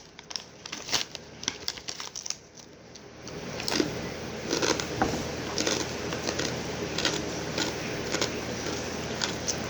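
Snack bag rustling and pretzels or corn chips crunching, as scattered crackles and clicks. A steady hiss comes in about three seconds in.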